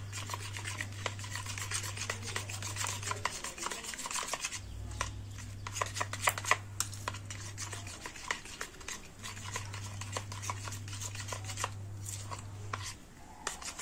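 A spoon stirring and beating a raw egg filling with chopped onion, green chilli and coriander in a bowl, with a quick run of small clicks and scrapes against the bowl. A low hum comes and goes underneath.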